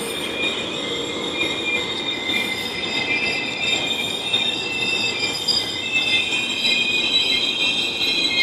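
GO Transit passenger train moving slowly along the platform, its wheels or brakes squealing in several steady high-pitched tones over the rumble of the coaches, growing a little louder near the end.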